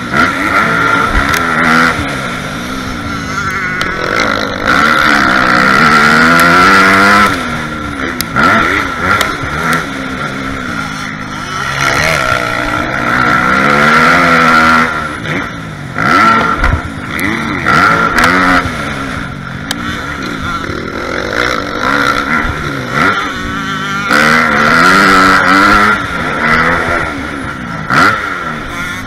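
Dirt bike engine revving up and dropping back again and again as the rider accelerates and shifts along a motocross track, heard through a helmet-mounted camera.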